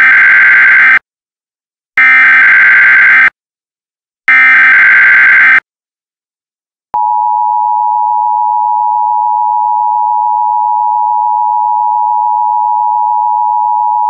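Emergency Alert System SAME header: three loud bursts of warbling data tones, each just over a second long, about two seconds apart. About seven seconds in, the steady two-tone attention signal starts and holds. Together they announce a Civil Danger Warning.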